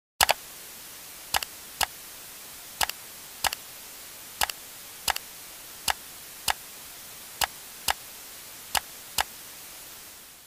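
Television static: a steady hiss cut by sharp clicks about once a second, some in quick pairs, the first and loudest right at the start, fading out at the end.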